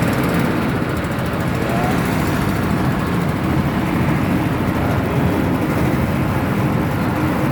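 Honda GX160 single-cylinder four-stroke engine running steadily on a rice threshing machine.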